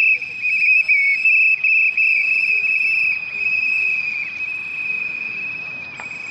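Insects trilling in a loud, steady, high-pitched drone.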